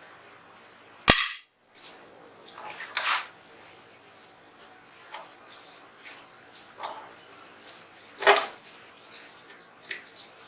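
Sharp metal clicks and clinks of steel pistol parts being handled while taking apart a Zigana 36 9mm pistol: one sharp click about a second in, scattered lighter clinks, and a louder clink past the eight-second mark.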